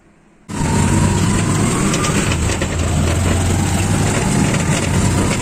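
A motor vehicle's engine running steadily with a strong low hum and road noise, heard from inside the vehicle; it starts abruptly about half a second in.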